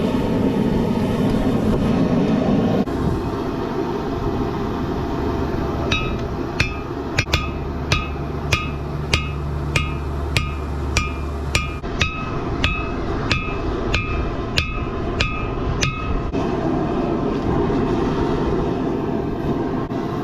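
Hand hammer striking steel on an anvil, about twenty ringing blows at roughly two a second, forging a piece of 1/8-inch tractor skid-plate steel out thinner. The blows start after several seconds and stop a few seconds before the end, over a steady rushing noise.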